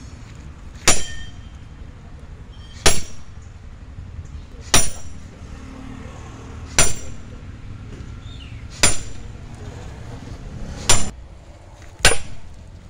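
Sledgehammer striking a steel splitting wedge driven into a log: seven sharp, ringing metal-on-metal blows about two seconds apart, the last two coming closer together.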